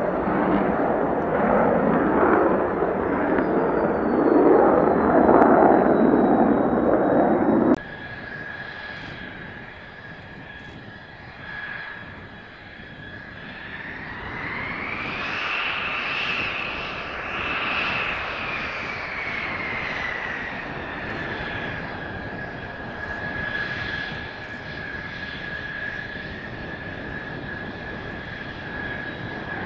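Mitsubishi F-2 fighter's F110 turbofan in afterburner, loud jet noise as it climbs away, cut off suddenly about a quarter of the way in. Then the much quieter, steady whine of F-2 jet engines running on the ground, with one whine rising in pitch about halfway through and falling back several seconds later.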